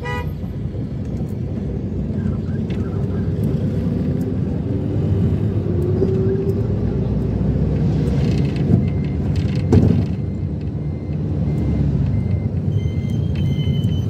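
Steady low rumble of a moving vehicle, with a single sharp knock about ten seconds in and a run of short, evenly spaced high beeps near the end.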